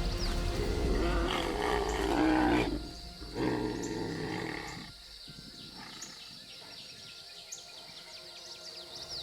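Tigers snarling and roaring in a fight: two loud, rough outbursts in the first five seconds, then quieter, over background music.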